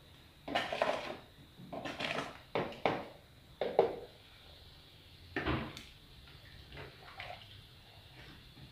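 A spoon stirring rice and water in an aluminium pot on a gas stove, with the pot handled on the burner grate. It comes as about five short scraping, sloshing bursts in the first six seconds, then fainter ones.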